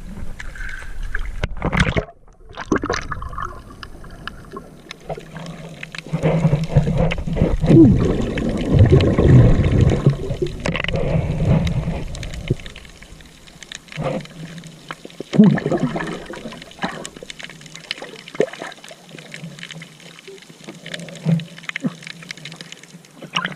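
Water sloshing and gurgling close to the microphone, heaviest for several seconds in the middle, with scattered knocks and splashes, as when wading or moving through shallow sea water.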